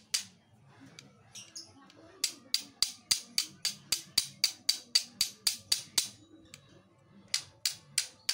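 Flint and steel: a steel striker scraped hard and fast down a red flint stone, throwing sparks onto coconut fibre tinder. The strikes come in quick runs of about three to four a second, with short pauses between the runs.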